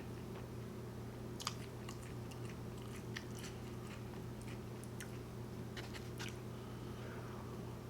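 Faint close-miked chewing with scattered wet mouth clicks as fast food is eaten, over a steady low hum.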